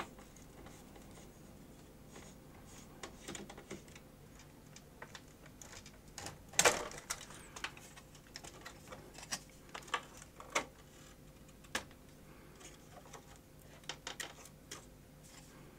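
Faint, irregular clicks and taps of a screwdriver, screws and plug connectors being worked on the metal and plastic chassis of an opened Panasonic NV-HS1000 video recorder as its tape deck is freed. The loudest knock comes about six and a half seconds in, with a cluster of smaller clicks after it.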